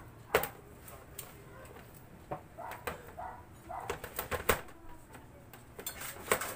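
Aluminium foil being peeled off a metal baking tray of baked brownies: scattered crinkles and sharp knocks of the tray against a stainless-steel table.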